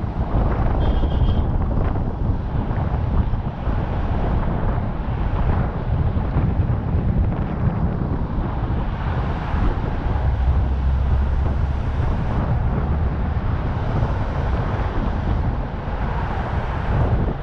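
Wind rushing and buffeting over the microphone on a moving vehicle, steady throughout, with road and traffic noise underneath.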